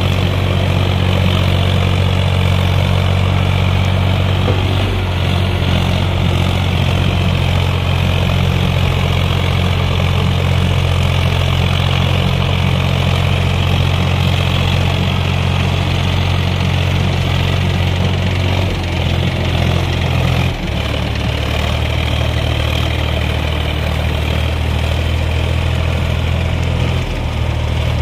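Solis 5015 tractor's three-cylinder diesel engine pulling a fully loaded soil trolley up a climb: a steady, loud low drone. Its pitch steps down a little about two-thirds of the way through as the engine takes the load.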